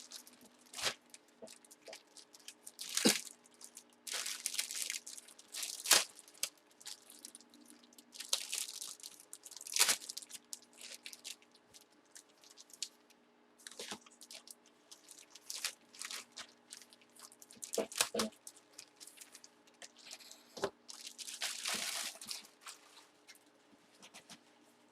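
Packaging being torn open and handled: irregular crinkling and tearing rustles, with scattered sharp taps and knocks.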